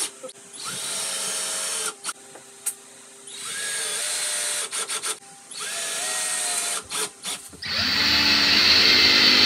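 VPX cordless drill/driver driving screws through steel mounting plates into pine, in short runs of about a second each, each spinning up at the start, with a few clicks between runs. A longer, louder run starts near the end.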